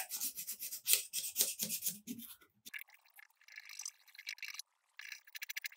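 DMT Dia-Sharp diamond mini hone rasping in quick short strokes along the steel edge of pruning shears, grinding out nicks to raise a burr. The strokes are fainter after about two seconds.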